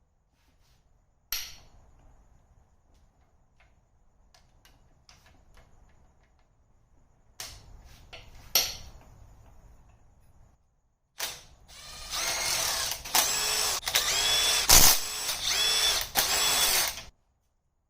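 A few sharp metallic clicks and clinks of tools, then a power tool running in repeated short pulses, about two a second, each rising and falling in pitch, for roughly five seconds before it stops.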